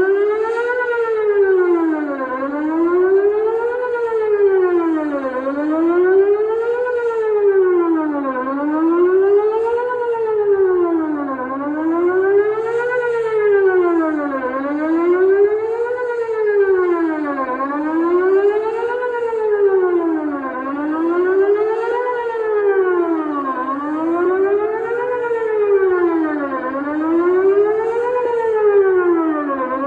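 Electronic outdoor emergency warning siren sounding a test wail: a single tone rising and falling in pitch over and over, about one cycle every three seconds.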